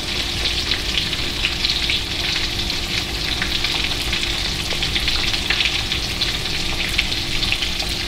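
Battered catfish frying in hot oil: a steady sizzle full of small crackles and pops.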